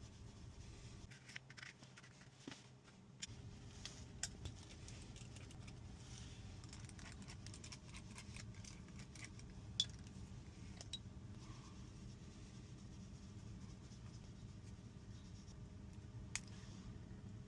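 Faint, scattered clicks and scrapes of small hand tools and phone parts being handled during an iPhone 13 screen replacement, with a sharper click a little before midway and another near the end.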